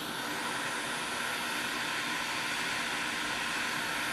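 Quick 861DW hot air rework station blowing a steady hiss of hot air onto a circuit board, with a faint steady tone under it. The hot air is melting the solder under shorted D-pak MOSFETs so they can be lifted off.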